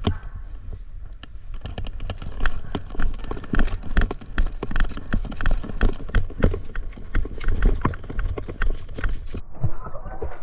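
Quick footsteps with knocks and rustling close to the microphone, as of a player moving on foot. The sound turns duller about nine seconds in.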